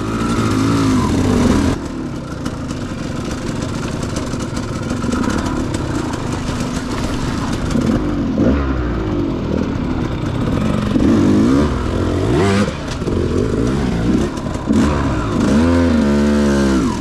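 KTM 200 XC-W two-stroke dirt bike engine revving hard up a steep climb, its pitch rising and falling again and again as the throttle is worked.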